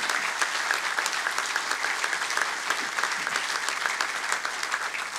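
Audience applauding steadily, many hands clapping at once, easing off slightly near the end.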